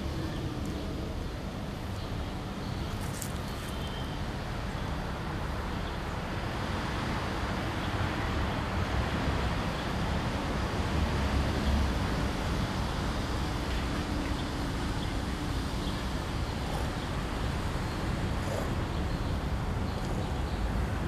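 Steady outdoor background noise with a low rumble: distant road traffic in a city courtyard.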